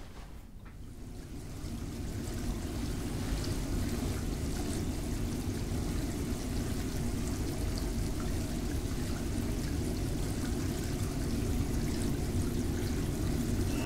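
Steady rush of running water, fading in over the first couple of seconds and then holding even until it cuts off abruptly.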